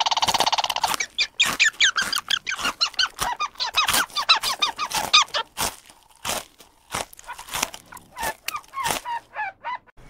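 A flock of fowl calling: many short calls that each drop in pitch, overlapping each other, then thinning out after about six seconds, with scattered sharp clicks among them.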